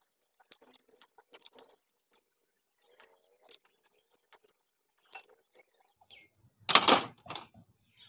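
Faint, scattered small metal clicks as tools work the tappet adjuster on a Honda CD-70's valve gear, tightening out excess clearance that had been making a tick. About seven seconds in comes a louder, brief clatter of handling noise.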